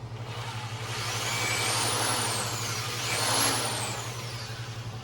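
Power drill run twice in quick succession, its motor whine rising and then falling each time over a hiss of drilling.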